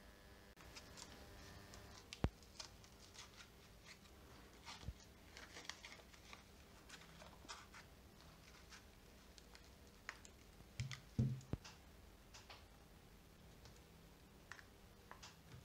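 Faint, scattered clicks and taps of a Samsung Galaxy S10 and plastic prying tools being handled during repair, with a couple of sharper knocks about two seconds in and around eleven seconds in.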